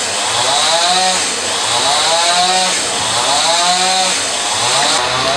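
A small engine revs up and falls back three times, about a second and a half apart, over a steady hiss.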